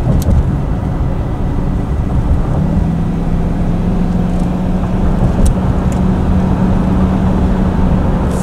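Inside a vehicle at highway speed: steady road and engine noise, with a low engine hum that rises slightly in pitch about two and a half seconds in.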